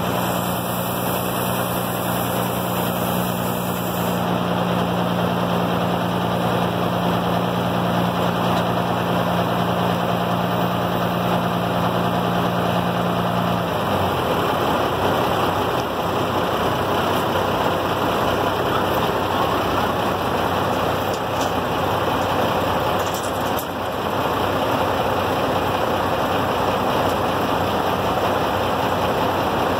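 Diesel engine of a crane truck running steadily, powering the truck-mounted knuckle-boom crane's hydraulics while a boat hangs from the hook. A steady low hum in the sound stops about halfway through, leaving an even engine noise.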